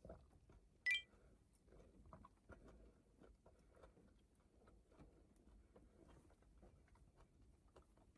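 A single short, bright clink about a second in, like a hard object tapping metal or glass, then faint small clicks and handling noises in a quiet, enclosed space.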